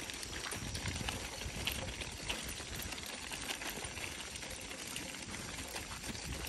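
Stroller wheels and walking footsteps crunching steadily over a loose gravel road.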